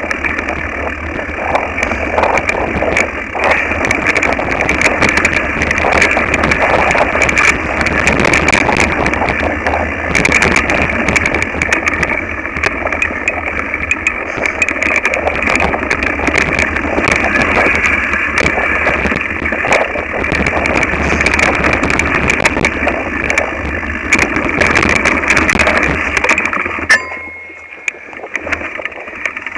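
Mountain bike rattling and clattering over a rough dirt singletrack, heard from a camera mounted on the handlebars: a steady run of knocks and rattles from the bike with a low rumble beneath. It goes much quieter for a couple of seconds near the end.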